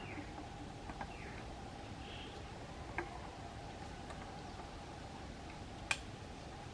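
Quiet outdoor background with a faint steady hum, a few faint bird chirps in the first couple of seconds, and scattered sharp clicks, the loudest about three seconds in and just before the end; no chainsaw is running.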